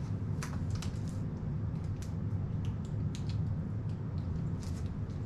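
A steady low hum, with scattered small clicks and rustles from a person eating.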